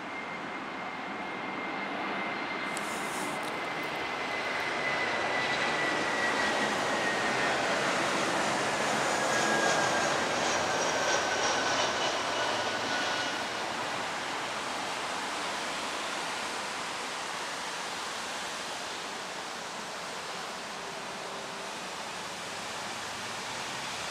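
Airbus jet airliner passing by: the engine noise swells to a peak about ten seconds in and then fades, with a fan whine that slides down in pitch as it goes past.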